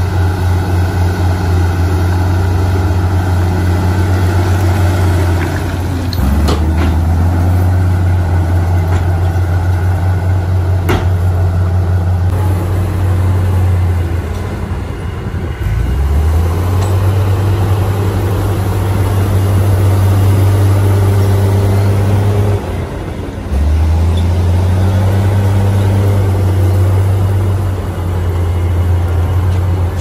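Loud, steady low hum of a heavy diesel dump truck engine running while the tipper bed is hoisted to dump its load of soil. The engine note drops and then picks up again about three times.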